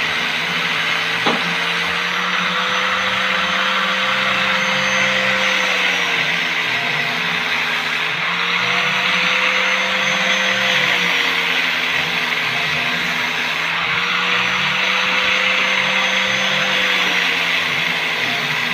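Electric motor of a small benchtop wood lathe running steadily, a hum under a whine that slowly rises and falls in pitch. One sharp click about a second in.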